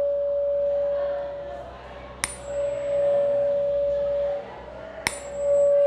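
Tuning fork struck twice with a rubber hammer: each blow is a sharp tap followed by a clear, steady single-pitched tone that rings for a couple of seconds and fades. The fork is already ringing at the start from an earlier strike.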